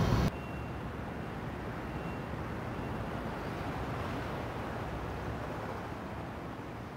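Steady low rumble and hiss of background noise heard from inside a car, fading out near the end.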